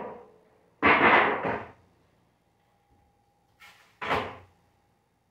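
Disposable aluminium foil pans being handled on a wooden table while rib racks are moved into them: a loud sudden noise about a second in as a pan is set down, then a shorter one about four seconds in as a rack is laid into a pan.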